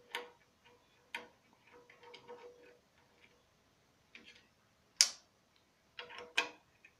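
A metal Allen key clicking and scraping in the socket-head bolts of a CNC machine's linear bearing block as the bolts are loosened: a handful of sharp metal clicks with light scraping between them, the loudest click about five seconds in.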